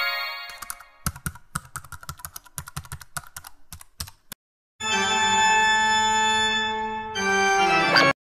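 Typewriter-style key clicks as an on-screen caption types itself out, about six a second for some three seconds, after a rising chime fades. Then a sustained electronic organ chord is held for over two seconds, followed by a shorter chord that swoops upward and stops abruptly.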